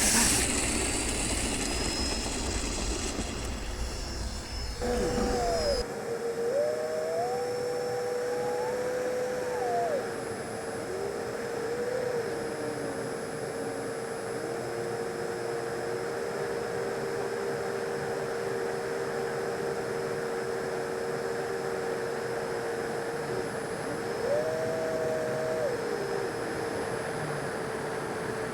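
Electric ducted fan of an Arrows Marlin 64mm model jet whining steadily in flight, its pitch sliding up and back down a few times as the throttle changes. The first few seconds are a rougher, noisier rush before the clean whine takes over.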